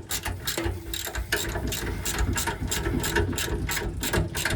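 Socket ratchet wrench clicking rapidly as the gooseneck hitch's mounting bolts are snugged down.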